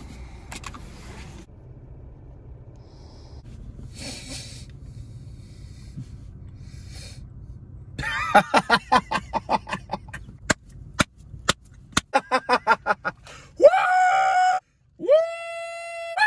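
A fast run of short pitched chirps lasting about five seconds, then a rooster crowing in two long held notes near the end, the second note falling away at its close.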